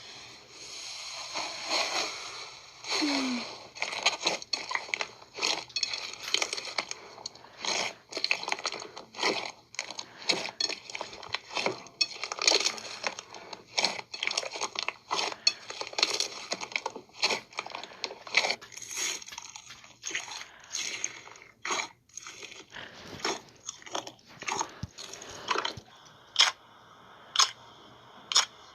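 Slime being squeezed and pressed, giving a dense run of irregular crunching and crackling clicks.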